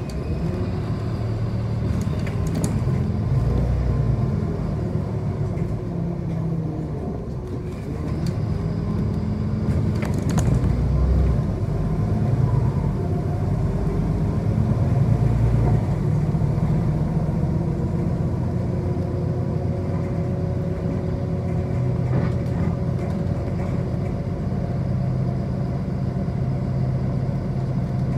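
City bus driving, heard from inside the passenger cabin: a steady low rumble of drivetrain and road, with a faint whine that rises and falls as the bus changes speed. A few brief clicks and rattles come through.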